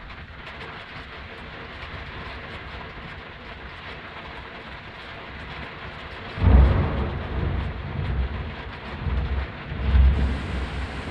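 Steady heavy rain, then about six and a half seconds in a sudden loud crack of thunder that rolls on as a deep rumble, swelling again near the end.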